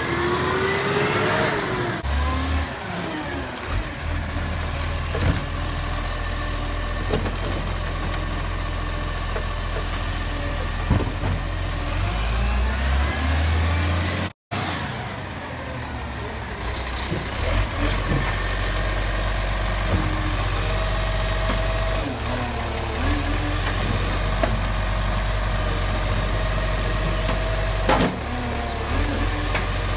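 Garbage truck diesel engines running and driving past, with the engine pitch rising and falling as they pull away and occasional knocks. The sound drops out briefly about halfway through, where one clip cuts to the next.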